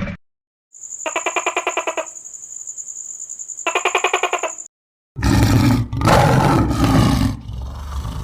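A fast-pulsing buzzy call, about ten pulses a second over a steady high whine, lasting about four seconds. It is followed by a loud, rough animal roar.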